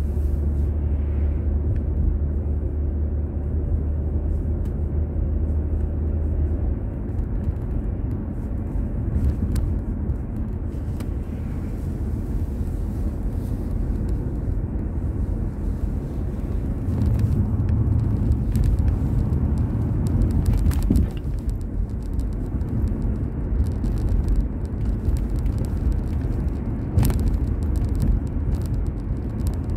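Steady low rumble of a car driving, heard from inside the car: tyre and engine noise. A low drone swells for the first few seconds and again briefly past the middle, with a single sharp click near the end.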